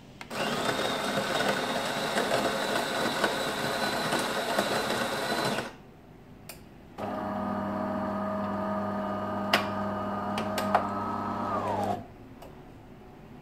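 DeLonghi ECAM22.110.SB automatic coffee machine working through its cycle: one motor runs for about five seconds with a steady high whine. After a short pause and a few clicks, a second, lower hum runs for about five seconds and slows down in pitch just before it cuts off.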